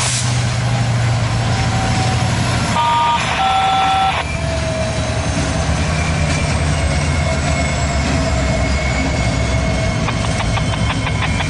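BRC GP23ECO diesel locomotive running as it pulls a cut of freight cars slowly past, with a steady low engine hum. About three seconds in a horn sounds twice, a short note then a longer one, and near the end the car wheels click over rail joints.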